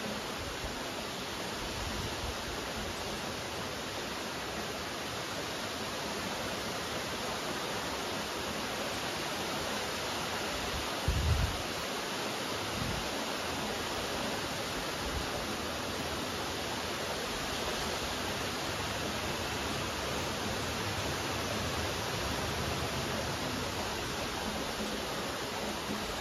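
Steady rain falling, an even hiss with no breaks. A little before halfway there is one brief low thump.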